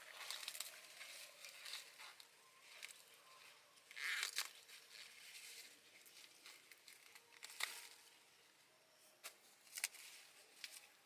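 Faint rustling and crinkling of dry leaves, with a few sharper snaps or tearing sounds: one about four seconds in, another near the middle and another near the end.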